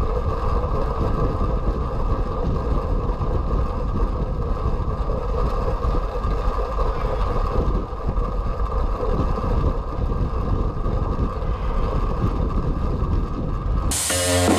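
Steady, muffled rush of wind and tyre noise heard from a camera mounted on a track bicycle riding the boards of an indoor velodrome. Electronic music cuts in near the end.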